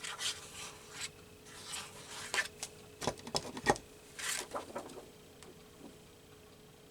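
Paper rustling and being rubbed by hand, with several light taps and clicks, as a glued magazine cut-out is handled and pressed down; the handling dies away after about five seconds.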